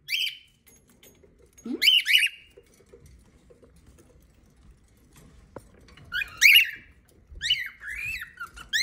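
Pet lovebirds and cockatiels calling in short, shrill bursts: one call at the start, another about two seconds in, a cluster about six seconds in, and a run of calls near the end.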